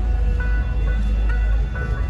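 Music of held melodic notes over a strong, deep low rumble; the rumble eases off near the end.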